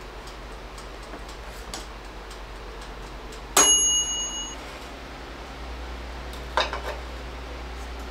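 Items being handled on a shelf of coffee jars and tins. About three and a half seconds in there is a sharp metallic clink that rings briefly, and a softer knock comes near the end, over faint regular ticking.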